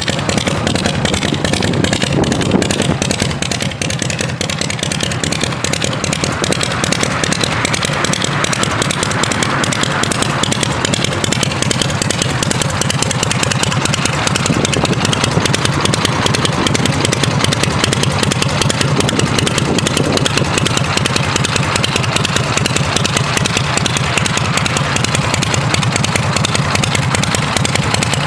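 Harley-Davidson Shovelhead V-twin engine of a chopper motorcycle running steadily.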